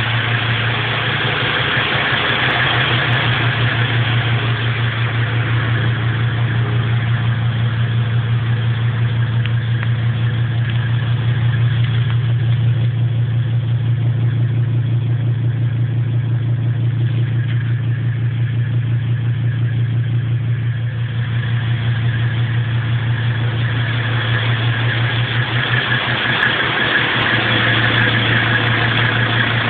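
Mercedes-Benz 300SD's OM617A five-cylinder turbodiesel idling steadily, freshly started after winter storage.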